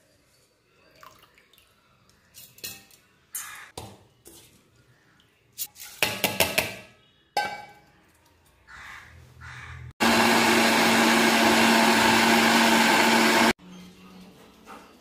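Usha Smash mixer grinder running for about three and a half seconds, grinding soaked rice in its steel jar: a loud steady whirr with a steady hum that starts and stops abruptly. Before it come a few scattered clinks and knocks.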